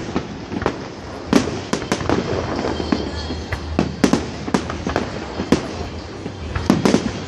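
Aerial fireworks display: shells bursting in a quick, irregular run of bangs, often more than one a second, over a continuous background of crackling and rumble.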